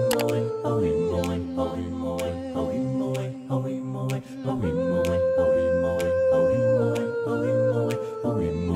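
Background music of held, choir-like vocal notes that step in pitch every few seconds, over light ticks.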